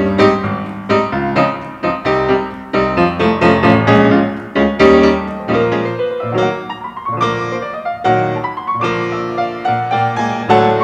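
Piano playing a classical piece, a steady stream of notes with a climbing run in the second half.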